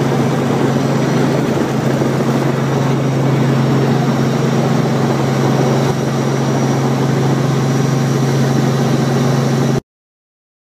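Robinson R44 Raven helicopter running, heard from inside the cabin: a steady, loud drone of piston engine and rotors with a strong low hum. It cuts off abruptly near the end.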